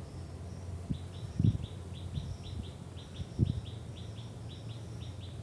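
A bird chirping rapidly and repeatedly, short falling notes about four a second, with two dull low thumps.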